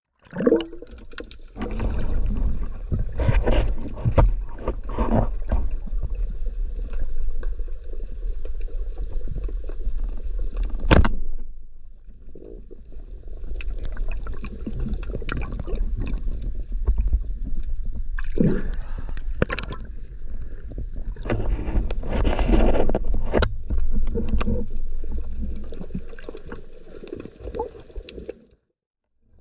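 Water noise picked up by an underwater action camera: a steady low rumble of moving water with muffled sloshing and scattered sharp clicks. It cuts off near the end.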